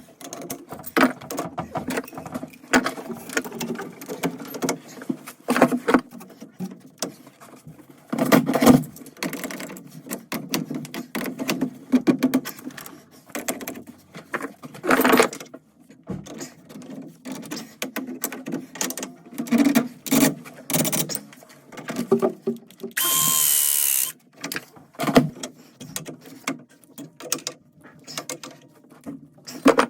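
Hand work on plumbing pipe fittings: a string of irregular clicks, knocks and rattles of tools and fittings being handled and tightened, with one steady whirring noise lasting about a second and a half about three quarters of the way through.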